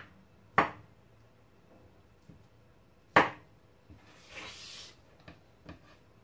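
Kitchen knife slicing through a roll of semolina dough filled with date paste, the blade knocking sharply on a stone countertop with each cut: three loud knocks, the loudest about three seconds in, and a few lighter taps. A brief scraping rustle follows about four and a half seconds in.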